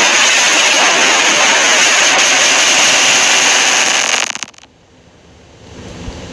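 Loud, harsh static noise of a fan-made Emergency Alert System alarm, cutting off suddenly about four seconds in. A quieter low buzz starts near the end.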